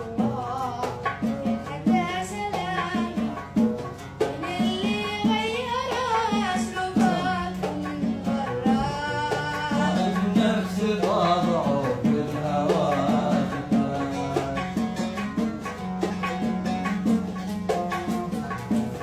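Oud played with quick plucked strokes, accompanying a boy's voice singing an Arabic song.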